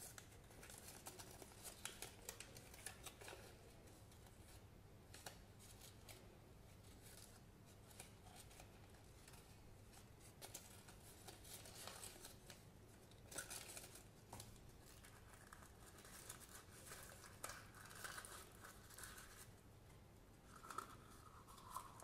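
Faint crinkling and crackling of a paper sticker being handled and peeled from its backing, in short irregular bursts.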